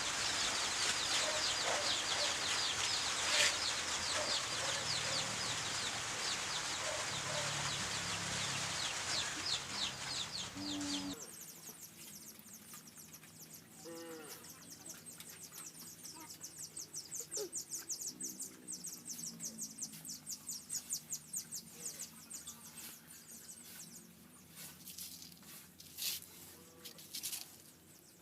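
Chickens clucking over a loud steady hiss that cuts off suddenly about eleven seconds in. After that it is quieter, with rapid high-pitched chirping and occasional clucks.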